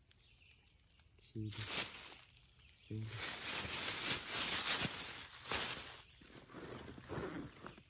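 Insects chirring in a steady, high, even tone, with a louder rustling hiss that comes up about three seconds in and dies away after about five and a half seconds.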